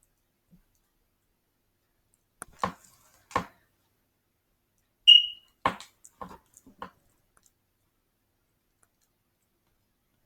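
A few light clicks and knocks in two clusters, with one short high-pitched beep about five seconds in.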